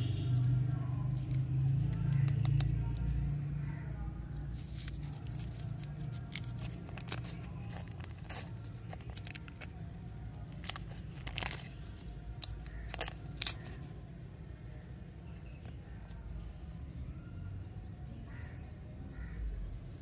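Lollipop wrapper being peeled off by hand, crinkling and tearing in scattered sharp crackles, most of them in the middle, over a steady low hum.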